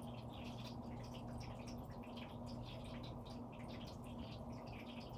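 Electric pet water fountain running: a steady low pump hum with water trickling and dripping, irregular small drips several times a second.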